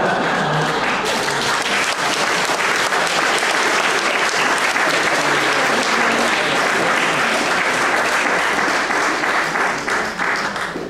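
Audience applauding: a steady round of clapping that tails off near the end.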